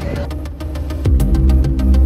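Background music with a steady beat; the bass gets heavier about a second in.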